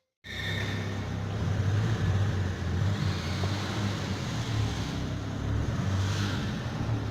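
Fiat Palio 1.0 Fiasa MPI four-cylinder petrol engine running steadily at idle.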